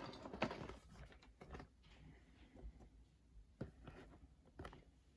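Lego plastic bricks being handled during a build: scattered faint clicks and small knocks with light rustling in between.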